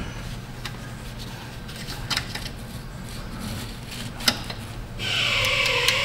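Small clicks and scrapes of screwdrivers prying at the release tab of a rear ABS wheel-speed sensor's electrical connector. About five seconds in, a steady hiss starts suddenly and is louder than the clicks.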